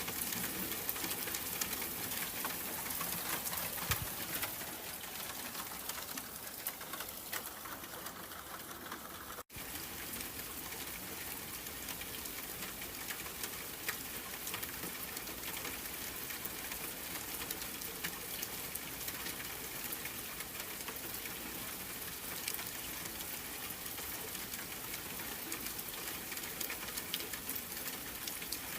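Steady rain, a dense hiss of many small drop ticks. The sound cuts out for an instant about nine and a half seconds in, then resumes.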